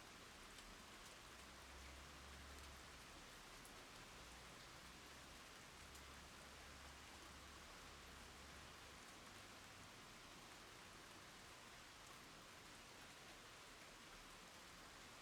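Faint, steady rain with raindrops pattering on the ground and on puddled water.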